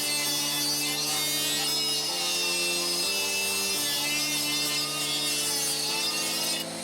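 Pneumatic-style die grinder with a ball-tip cutter grinding into steel, cutting out spot welds, with a high wavering whine and hiss. Background music with slow chord changes plays underneath.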